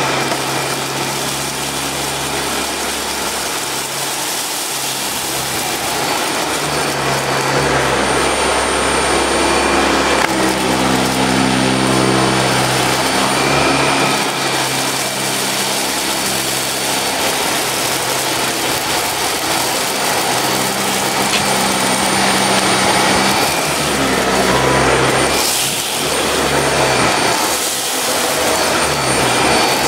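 Dyson Ball Animal 2 upright vacuum cleaner running steadily, its cleaner head pushed across carpet strewn with uncooked rice. The low motor hum shifts in pitch several times under an even rush of suction air.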